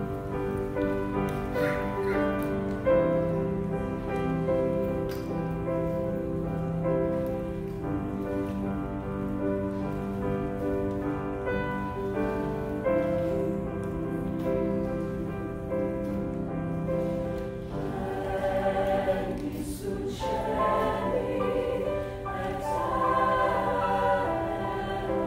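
Mixed choir singing long, held chords with piano accompaniment, the harmony changing every few seconds. Near the end the higher voices come in louder.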